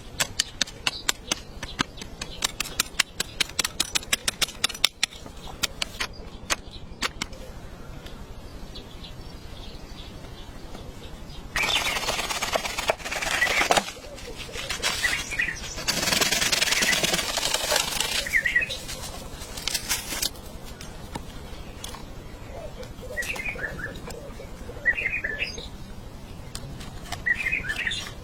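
Rapid sharp taps for the first several seconds, then two bursts of rushing noise, each a few seconds long, and birds chirping near the end.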